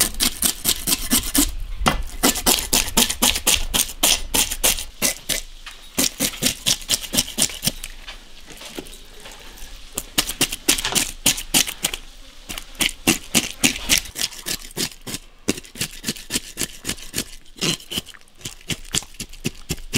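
Cleaver blade scraping scales off a northern snakehead fish on a plastic chopping board, in rapid strokes several times a second, with a short lull about halfway through.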